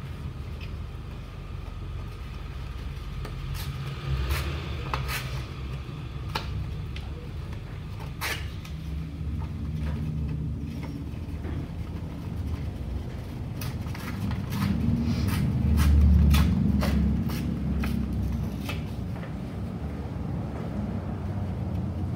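Torn black construction paper being handled and pressed onto a collage on a tabletop, giving scattered light rustles, taps and clicks. Under them runs a low rumble that swells about two-thirds of the way through.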